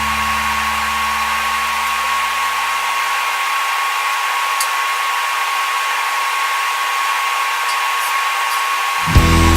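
Steady whir of a running power tool with one constant high tone. Music comes in near the end.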